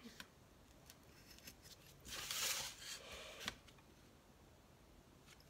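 X-Acto knife blade drawn along a ruler, cutting into foam core board: one scraping cutting stroke about a second and a half long, starting about two seconds in and ending in a sharp tick, with a few faint clicks around it. It is a second pass to cut through spots the first cut didn't go all the way through.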